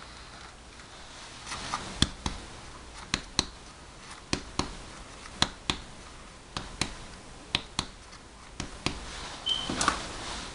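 Chest percussion on the back: a finger tapped against another finger laid flat on the skin, giving sharp taps in pairs about once a second. The taps move down the back while a deep breath is held, to find where resonance turns dull at the level of the diaphragm in a diaphragmatic excursion check.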